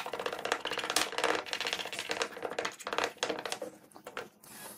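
Rapid scratchy rubbing of gloved fingers and liquid over a wet sharpening stone, a busy run of short strokes that thins out and grows softer near the end.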